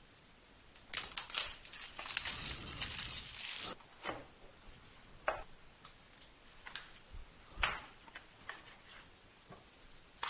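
Smartphone retail box being opened by hand: a few seconds of rustling and scraping as the lid comes off, then scattered light taps and clicks as the packaging and contents are handled.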